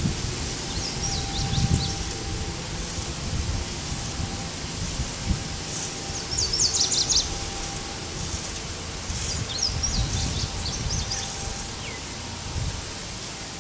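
Wind rumbling unevenly on the microphone, with a bird chirping in short quick runs about a second in, around seven seconds and around ten seconds; a faint steady hum lies underneath.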